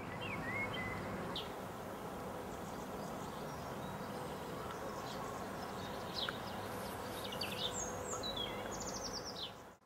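Steady buzzing of many bees, with songbirds chirping over it, most often in the last few seconds, including a quick trill near the end.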